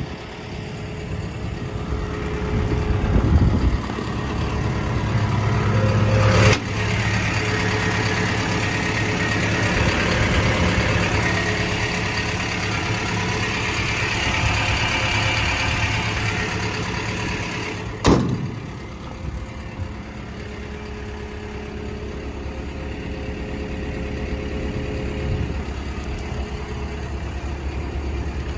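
Komatsu PC170LC-10 excavator's diesel engine running. It is louder, with a higher whine added, through the first half or so. Two sharp clicks come about 6 and 18 seconds in, and after the second it settles to a steadier, quieter idle.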